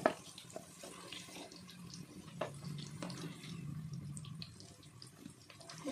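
Potato cubes deep-frying in hot oil, a steady sizzle with small crackles. A slotted spoon knocks against the pan right at the start and once more about two and a half seconds in as the fried potatoes are lifted out.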